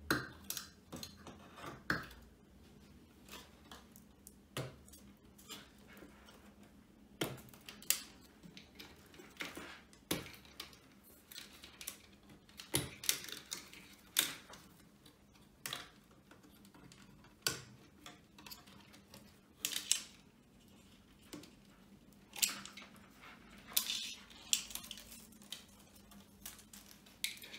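Scattered small clicks, taps and rattles of hands pulling wire connectors off the loudspeaker drivers and lifting out the crossover board.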